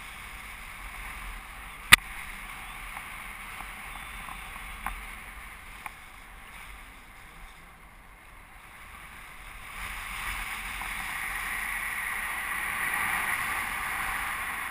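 Airflow rushing past a paraglider in flight, a steady hiss of wind on the microphone that grows louder from about ten seconds in. A single sharp click about two seconds in, with two fainter ones a few seconds later.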